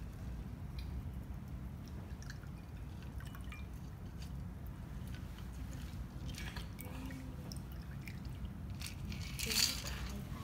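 Cocktail poured from a stainless steel shaker into a martini glass: liquid trickling and dripping, with faint clinks of metal on glass over a low room hum. A brief, louder clatter comes near the end.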